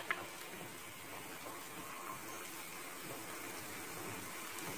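Fish-head soup broth at a rolling boil in a pot, a steady bubbling hiss, with a faint clink of a metal ladle against the pot just at the start.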